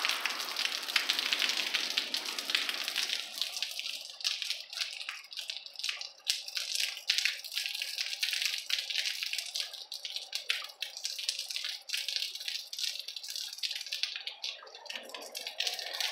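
Rain falling, a dense steady hiss for the first few seconds, then thinning about three seconds in to a lighter patter full of separate drips and drops.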